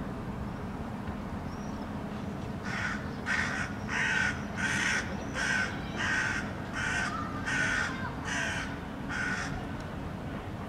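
Hooded crow giving a loud run of about ten harsh caws in quick, even succession, starting a few seconds in. They are protest calls at a cat being walked nearby.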